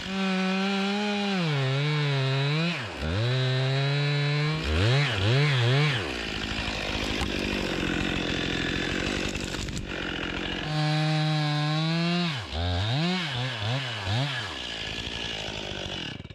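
Stihl chainsaw cutting through a tree trunk, its engine running at high revs and rising and falling repeatedly with the throttle. It stops for several seconds in the middle, starts again with quick rev dips, and cuts off just before the end.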